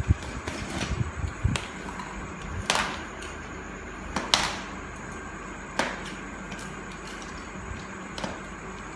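Scattered knocks, clacks and rustles of objects being handled and set down, about half a dozen sharp ones spread out, the loudest right at the start and about four seconds in.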